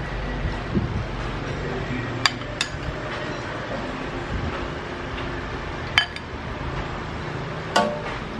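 Metal ladle clinking against a stainless steel soup pot and a ceramic bowl while soup is ladled out: four sharp clinks over a steady background rumble.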